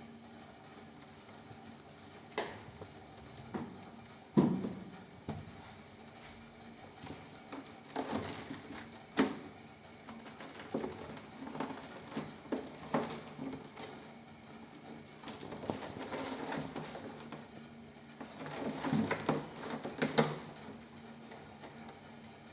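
Kittens playing: irregular light taps, thumps and scuffling, with a sharper knock about four seconds in and another near nine seconds.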